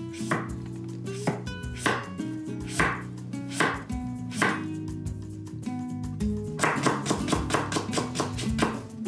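Kitchen knife cutting a carrot on a wooden cutting board. Slow, separate strokes come roughly one a second, then about two-thirds in they become quicker, several a second, as the slices are cut into thin strips.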